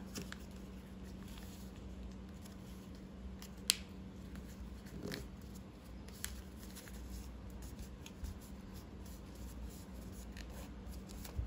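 A folded sheet of A4 paper being handled and creased by hand: faint rustling and rubbing of the thick layers, with a sharp paper tick about a third of the way in. A steady low hum runs underneath.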